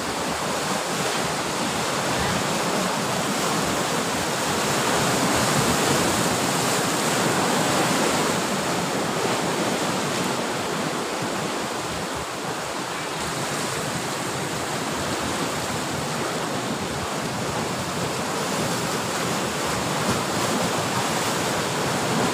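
Sea surf breaking and washing ashore in a steady rushing wash, swelling a little louder about a quarter of the way in.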